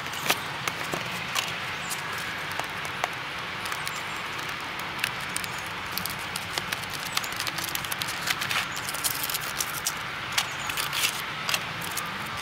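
Model locomotive packaging being handled: a card box slid open and a clear plastic 'ice cube' case lifted out, giving scattered light clicks, taps and crinkles over a steady background hiss, busier in the second half.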